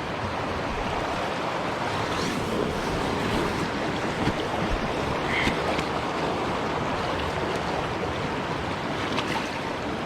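Steady rush of swift, high floodwater, a continuous noisy wash with no break.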